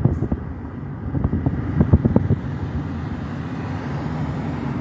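Steady low rumble inside a car's cabin, with a few short knocks between about one and two seconds in.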